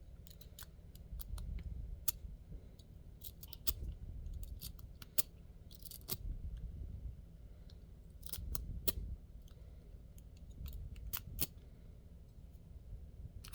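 A metal rake pick being scrubbed in and out of a lock's keyway, giving irregular clusters of sharp metallic clicks and scrapes as it rattles over the pins or wafers.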